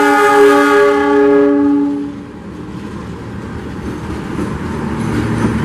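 Diesel locomotive horn sounding one long, steady blast that cuts off about two seconds in. It is followed by the rumble of the locomotive and its coaches rolling past.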